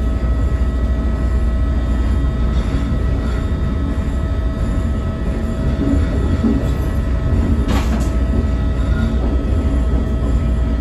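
CTA 2600-series rapid-transit car running at speed on the Blue Line: a steady low rumble with a constant whine of several steady tones, and a short sharp burst of noise about eight seconds in.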